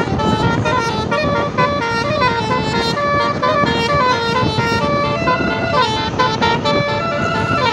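Telolet Basuri musical horn on a tour bus playing a tune: a run of pitched horn notes stepping up and down, one after another without a break.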